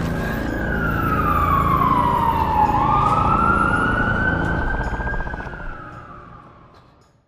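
Siren wailing over a low rumble: its pitch falls slowly, swoops back up just under three seconds in, then slowly sinks again. The whole sound fades away near the end.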